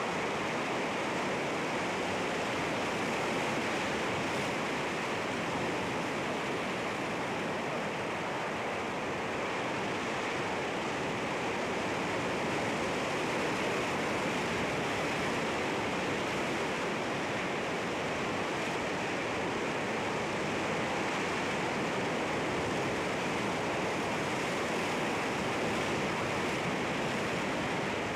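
Sea waves washing against rocks, a steady, unbroken rush of surf with no single wave standing out.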